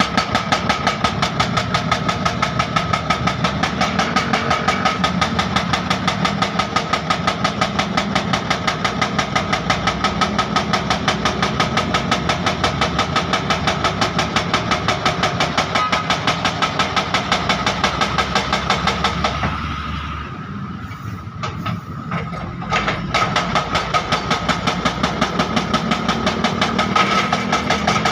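Excavator's diesel engine running with a fast, even pulse. The sound drops away for a few seconds about two-thirds of the way through, then comes back.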